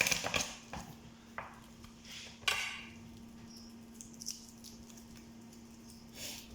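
Garlic being crushed with a kitchen knife on a chopping board: a few light knocks, then a short crunching smack about two and a half seconds in, and another brief one near the end.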